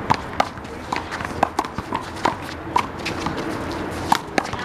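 A handball rally: a rubber big blue ball smacked by players' hands and bouncing off the wall and court, about a dozen sharp, irregular smacks.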